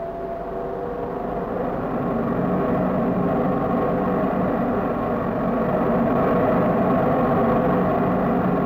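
Large supersonic wind tunnel's drive fan and compressor running, a steady roar with a faint whine through it, growing louder over the first couple of seconds and then holding.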